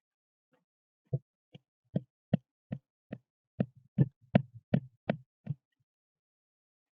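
A small mallet knocking on the Peugeot 205 engine's cylinder head, about a dozen sharp blows over four seconds that quicken in the middle, to jar the head free of the block.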